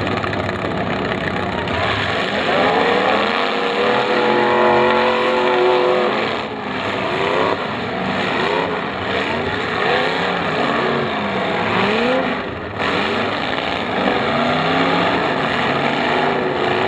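Demolition derby cars' engines revving hard over a dense, steady engine din, their pitch sweeping up and falling back again and again as the cars push and ram.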